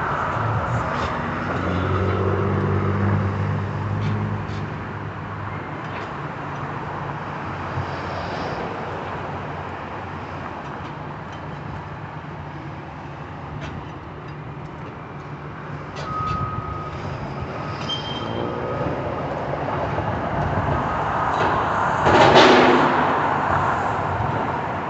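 Heavy vehicle or machinery engines running, with a louder swell about three seconds before the end.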